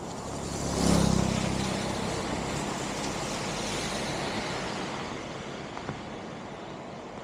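A road vehicle passing by, loudest about a second in, with engine hum and tyre noise fading away over the next few seconds.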